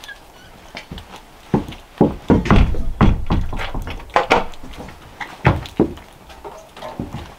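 Irregular series of thunks and knocks, loudest and most frequent between about two and four and a half seconds in.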